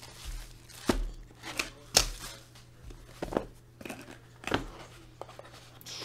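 Clear plastic shrink wrap being torn and peeled off a trading-card box: crinkling, with several sharp snaps about once a second.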